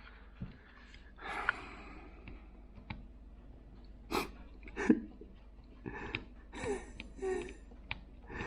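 Scattered small clicks and taps from handling and fitting a smartphone's small internal parts, mixed with breaths and a few short murmured sounds.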